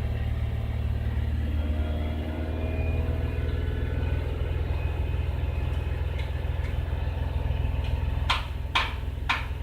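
2003 Jaguar X-Type's V6 engine running steadily, with a misfire and backfire problem under diagnosis. Near the end come three short sharp knocks in quick succession.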